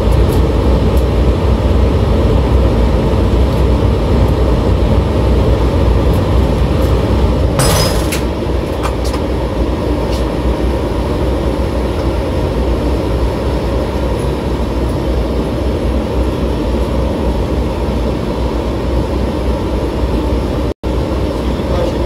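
Steady mechanical and air noise of a running Trane 90-ton rooftop unit heard at its open access door, with a metal clunk about 8 seconds in as the door is shut, after which the noise is a little quieter.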